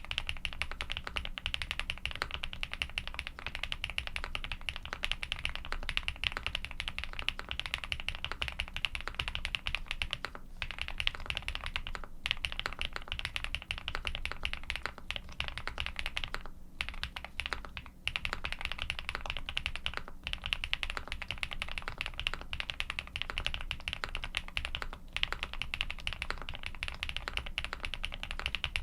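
Continuous fast typing on a custom mechanical keyboard with lubed Durock Cobalt POM linear switches, GMK keycaps and a polycarbonate plate: a dense stream of keystroke clacks. The typing breaks off in a few short pauses, the longest about a second long just past the middle.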